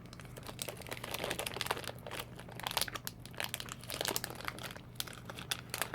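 Plastic candy packaging crinkling as it is handled, with dense, irregular crackles throughout.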